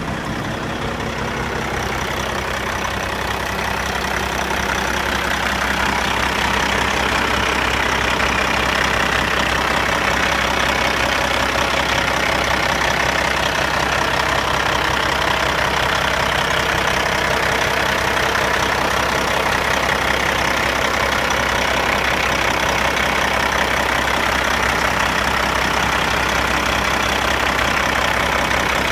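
Caterpillar 3406E inline-six diesel in a 1995 Kenworth T800 dump truck idling steadily, growing a little louder over the first few seconds and then holding even.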